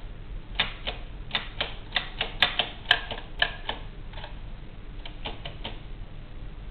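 Williams No. 2 typewriter, circa 1897, being typed on: irregular sharp key strikes, about a dozen in the first four seconds, then a short pause and four quicker strikes about five seconds in.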